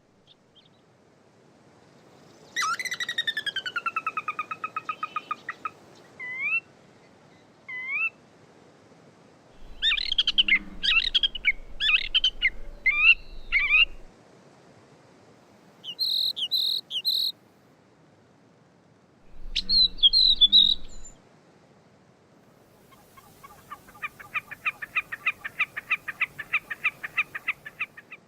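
Gray catbird singing a string of separate, varied phrases, mimicking other species such as sora, western wood-pewee, Wilson's snipe and Pacific tree frog. The song opens with a falling pulsed whinny, followed by short upslurred notes and warbled phrases, and closes with a long fast trill.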